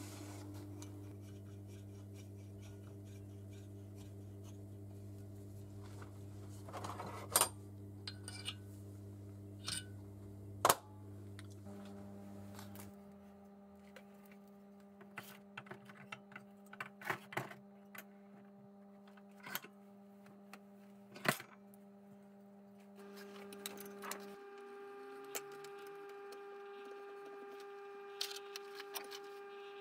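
Scattered sharp metallic clicks and clinks as steel engine parts and hand tools are handled and set down while a motorcycle cylinder head is being dismantled, over a steady low hum.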